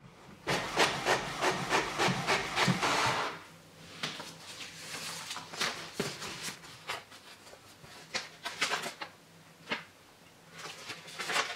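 HP Officejet Pro 8600 inkjet printer running a double-sided print job: a dense run of rapid clicks and rattling for about three seconds, then quieter, scattered clicks and short rattles.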